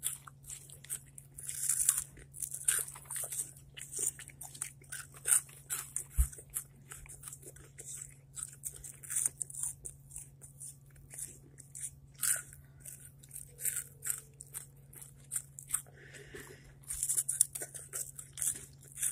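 Close-up crunching and chewing of crunchy puffed hot chips: irregular sharp crunches from bites, with quieter chewing between them.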